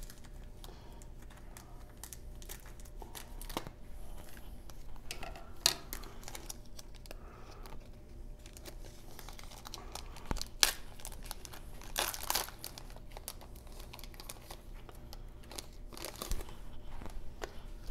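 Scissors cutting the end off a 1990 Score baseball card wax pack, then the wrapper crinkling and tearing as it is pulled open and the cards slid out. The crackling is irregular throughout, with a few sharper, louder crackles.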